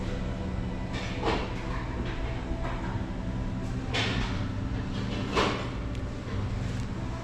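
A steady low hum with three short knocks or clatters, about a second in, about four seconds in and about five and a half seconds in.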